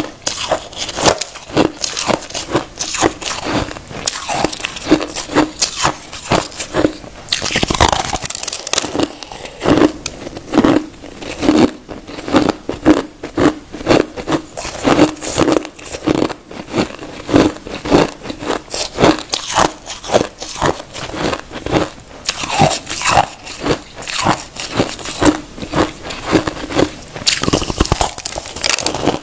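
Crushed ice being bitten and chewed close to the microphone: a steady run of crisp crunches, about two a second, with a longer, louder crunching burst around eight seconds in.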